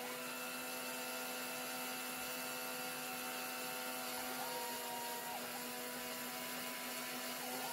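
Home-made CNC machine milling copper tracks on a PCB blank: a steady whine from its 540 RC buggy motor spindle with the stepper motors running under it. A higher tone briefly joins in, with short glides, about halfway through and again near the end as the axes change moves.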